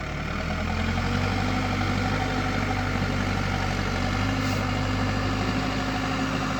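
Diesel engine of heavy machinery running steadily. It grows louder over the first second, then holds an even note.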